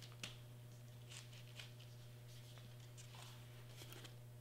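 Faint rustles and a few light taps of hands pressing and smoothing glued glitter cardstock on a cutting mat, over a steady low hum.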